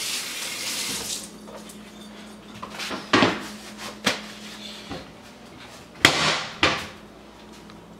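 Kitchen tap running into a stainless steel sink while hands are washed; the water stops about a second in. Several short sharp knocks and brief rustling bursts follow.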